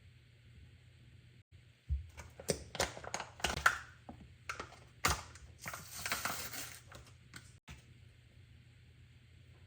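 A run of sharp clicks, knocks and crackly rustling, like things being handled, starting about two seconds in and lasting about five seconds.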